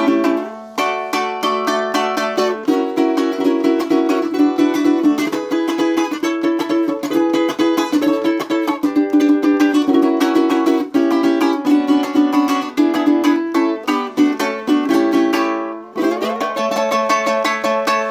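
Handmade cuatro with a European spruce top and teak back and sides, strummed in a rapid rhythmic chord pattern. There are short breaks about half a second in and again near the end, where a chord is left to ring before the strumming resumes.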